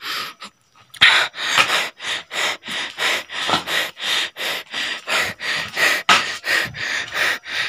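A man panting hard and fast, about three loud breaths a second, starting after a brief pause about a second in.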